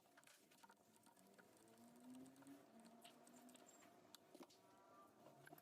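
Near silence, with faint scattered light clicks.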